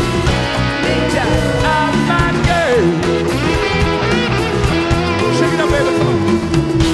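Live rock band playing, led by an electric guitar solo with bent and sliding notes over bass, drums and percussion.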